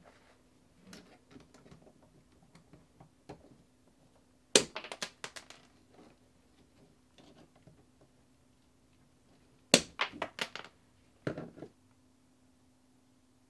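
Hand wire strippers cutting and stripping the insulation on the copper conductors of a 240 V dryer cable. There is a sharp snap followed by a quick run of clicks, twice about five seconds apart, then a shorter run of clicks, with light handling ticks of the wires between.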